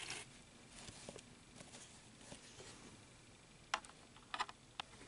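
Faint rustling and scraping of yarn and crocheted fabric handled close to the microphone as a crochet hook draws yarn through for slip stitches, with a few sharp little clicks near the end.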